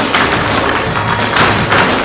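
Flamenco-style music with a rapid run of sharp percussive strikes, about four or five a second.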